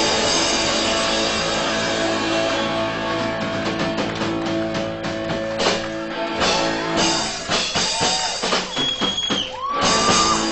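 Live punk rock band with electric guitars, bass and drum kit, playing a loud held chord that breaks up about six seconds in into separate crashing hits and strums as the song ends.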